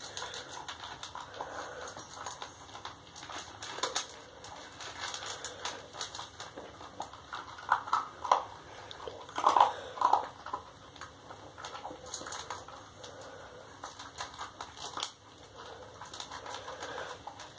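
Basset hound eating dry kibble from a stainless steel bowl: a run of crunching and chewing, with kibble clicking against the metal. There are a few louder knocks about 8 and 10 seconds in.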